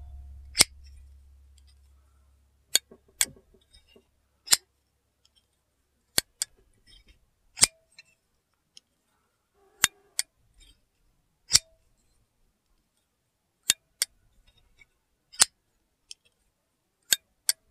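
Medford Slim Midi titanium frame-lock folding knife on bearings, its blade flicked open and closed over and over. The blade makes sharp metallic clicks as it locks up and snaps into the detent. The clicks come in a repeating pattern of a close pair and then a single click, about every three and a half seconds.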